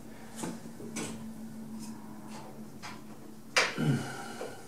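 Light clicks and one sharper knock about three and a half seconds in as the computer case is handled near its top fans, over a faint steady hum that stops shortly before the knock.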